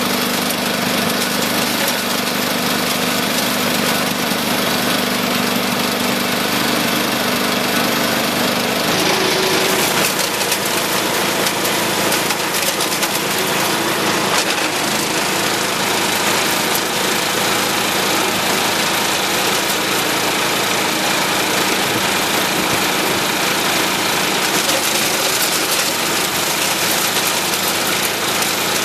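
Wood chipper shredder driven by a 13 hp Honda-clone single-cylinder four-stroke engine, running steadily. About nine seconds in the engine note changes and a rougher, crackling noise joins it as garden waste is shredded.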